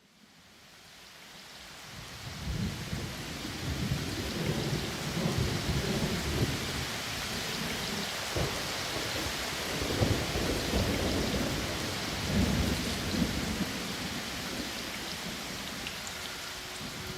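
Steady rain with low thunder rumbling through it. It fades in over the first few seconds.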